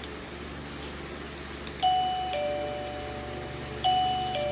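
Plug-in wireless doorbell chime unit playing a two-note falling ding-dong twice, about two seconds apart, each note ringing on after it is struck. The chime sounds at each new setting as its volume button is stepped up toward its maximum.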